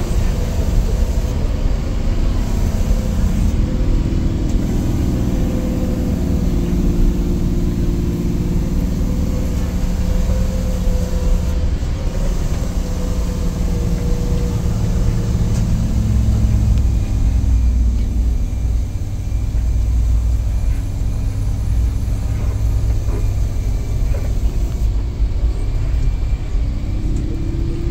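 Vehicle engine running under load with tyre and road rumble on a loose volcanic-gravel track, heard from inside the cab. The engine note falls about halfway through, leaving a deeper, steady rumble.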